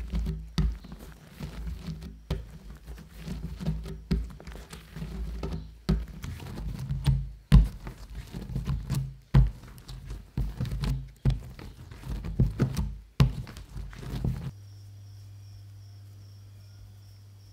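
Bread dough kneaded by hand on a wooden board: irregular thumps and sticky slaps, about one or two a second, as the dough is pushed, stretched and folded. About three-quarters of the way through the thumps stop and a quiet steady hum is left.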